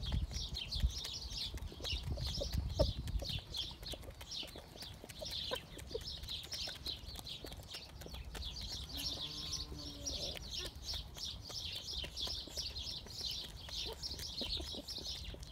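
Exchequer Leghorn chickens feeding: a hen gives a short soft cluck about nine seconds in, with small clicks of beaks pecking grain. A fast, high-pitched chirping runs on steadily underneath.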